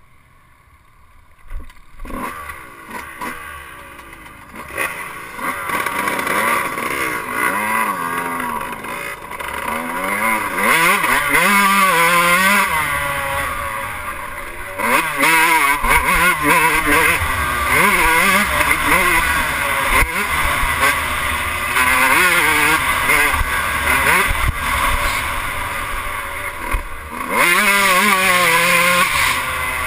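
Yamaha YZ125 two-stroke single-cylinder motocross engine, heard from on board, pulling away quietly and then revving hard. The pitch climbs and falls again and again through the gears, with brief drops in throttle.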